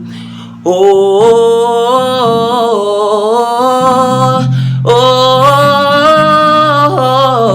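A solo singer performing a gospel song, holding two long, wavering sung notes over a steady instrumental backing. The singing starts after a brief dip less than a second in.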